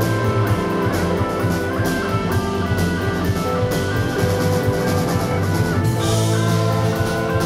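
Rock band playing live: electric guitars, bass and drum kit with a steady beat.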